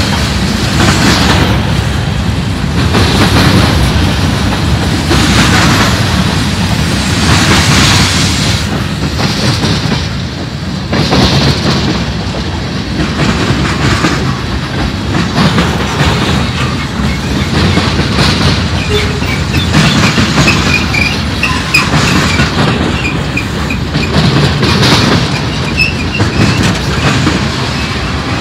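Freight cars of a manifest freight train rolling past close by: a steady rumble of steel wheels on rail, swelling in a regular clack every couple of seconds as each car's wheel sets go by. Faint wheel squeal comes and goes in the second half.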